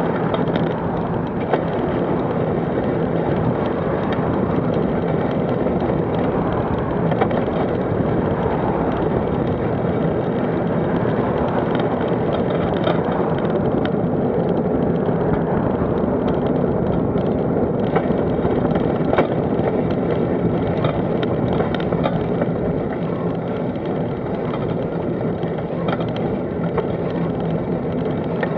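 Steady rumble of wind and road noise from riding along a road, with oncoming cars going by near the start.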